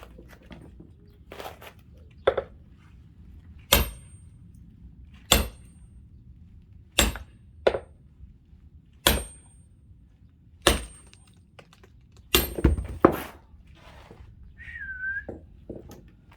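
Axe or maul blows splitting firewood: sharp cracking strikes about every second and a half, some with a brief high metallic ring, with three quick blows near the end. A short, faint wavering whistle follows.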